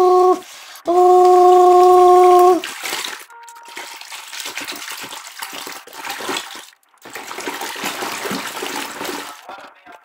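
A loud, steady hum-like tone sounds twice in the first two and a half seconds. Then water sloshes and splashes as wet, soapy cloths are rubbed and squeezed by hand in a washing machine tub.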